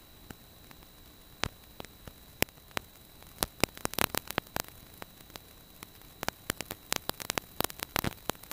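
Recording noise in place of any engine sound: a faint steady hiss with a thin high whine, broken by irregular sharp clicks and crackles that come thickest about four seconds in and again near the end. It is a faulty audio feed, which the uploader puts down to the GP10 needing an update.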